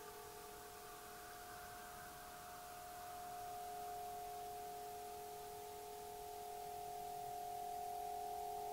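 104-inch Aeolian wind harp droning in the wind: several steady, overlapping tones. A higher shimmer fades out in the first few seconds while a middle tone swells, and the whole sound slowly grows louder.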